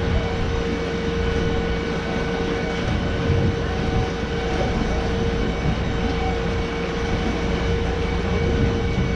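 Glass-bottom tour boat's motor running steadily under way: a constant low rumble with a steady whine on top.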